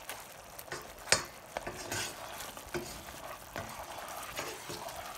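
A black cooking spoon stirring and scraping a thick, flour-thickened sauce in a skillet, with irregular short scrapes against the pan over a low sizzle from the simmering sauce. The sharpest scrape comes about a second in.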